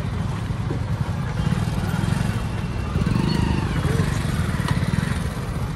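Motorcycle engine running at low revs with a steady, fast low pulse while the bike creeps along slowly. Faint voices are in the background.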